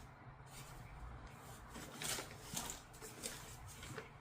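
Hands handling a sticky adhesive sheet: a few soft, scattered rustles and clicks.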